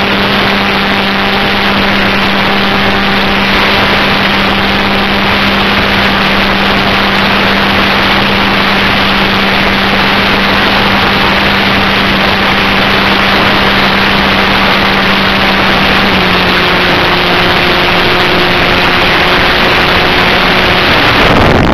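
Motor and propeller of a radio-controlled flying wing in flight, heard from a camera on board: a steady drone under heavy wind rush, dropping slightly in pitch about sixteen seconds in.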